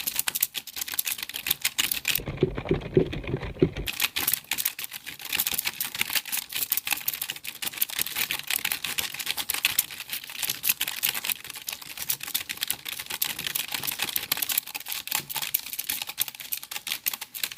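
Computer keyboard being typed on rapidly, a dense run of irregular key clicks. About two seconds in, the clicks turn muffled for a couple of seconds, with a low rumble under them.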